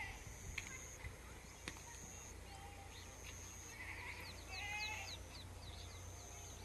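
Rural outdoor ambience: a steady low rumble, with a short wavering bleat from a farm animal about two-thirds of the way through and a quick run of small bird chirps around it.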